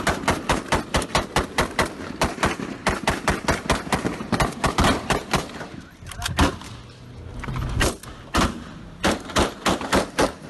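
Rapid gunfire, about five or six shots a second in a long continuous string. After about five seconds it thins to scattered single shots.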